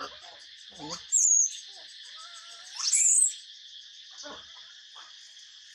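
Baby macaque giving two short, shrill squeals while nursing, each rising then falling in pitch, over a steady high hiss.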